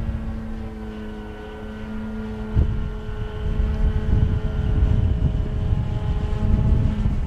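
Hangar-9 Funtana S90 radio-controlled aerobatic model plane in flight, its motor and propeller giving a steady droning tone that drifts slightly in pitch. Wind rumbles on the microphone, with a brief thump about two and a half seconds in.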